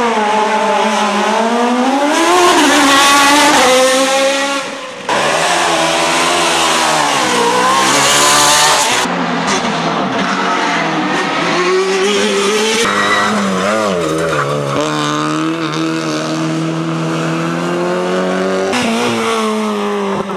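Racing car engines at full throttle as cars run up a hill-climb course, one after another, each engine revving up and falling back at gear changes.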